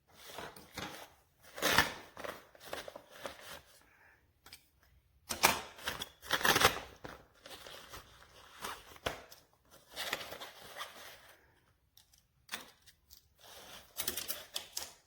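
Irregular handling noises: uneven bursts of rustling and scraping with clicks, loudest about two seconds in and again around five and a half to seven seconds in.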